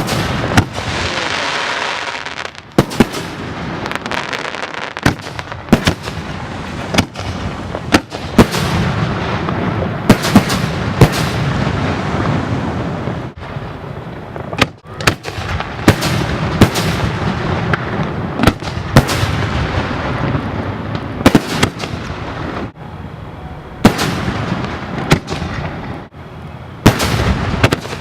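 Aerial fireworks display at close range: a rapid string of sharp booming shell bursts, often several a second, over continuous crackling and rumbling from the shells.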